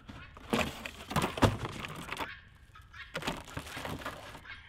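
Cardboard packaging rustling and knocking as a chainsaw is drawn out of its box and set down on a concrete tabletop. There are a few thunks in the first second and a half, then softer handling sounds.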